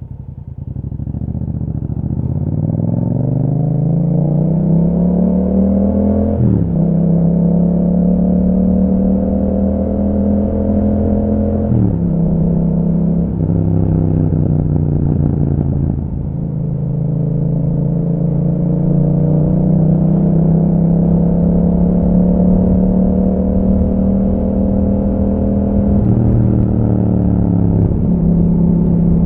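Yamaha MT-07's 689 cc parallel-twin through an Akrapovic exhaust with a dB killer fitted, accelerating under way. Its pitch climbs and drops back at each upshift, the first about six seconds in and another about twelve seconds in. After that it mostly runs at a steady cruise, with a brief dip near the end.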